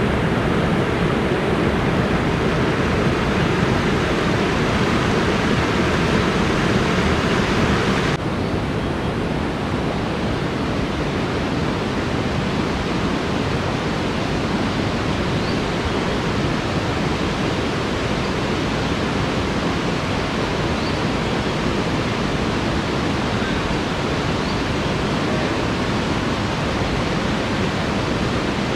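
Fast-flowing river rushing over rocks and boulders in a steady, loud wash of water noise. About eight seconds in the sound shifts abruptly, with less high hiss, and then runs on unchanged.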